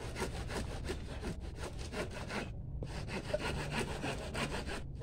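Hand saw cutting through wood in quick back-and-forth strokes, several a second, pausing briefly about halfway through.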